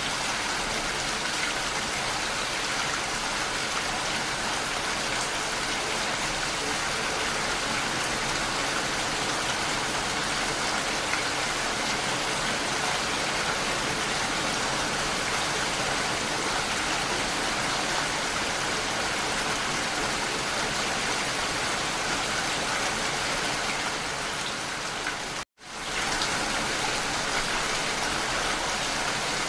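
Steady rain falling, an even dense hiss. About 25 seconds in it fades out to silence for a split second and comes straight back.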